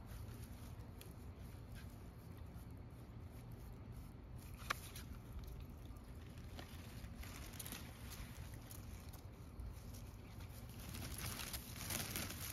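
Faint rustling and crackling of dry grass and dead leaves as a cat moves and paws through them, with one sharp click about halfway and louder rustling near the end.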